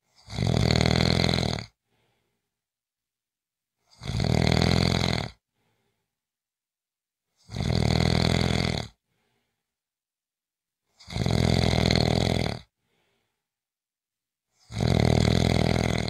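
A person snoring, five loud rattling snores about one every three and a half seconds, each lasting about a second and a half, with silence between.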